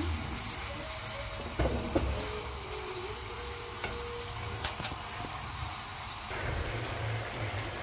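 Chicken pieces sizzling in a frying pan in their own juices, with a steady hiss, while a spatula stirs them and knocks against the pan a handful of times.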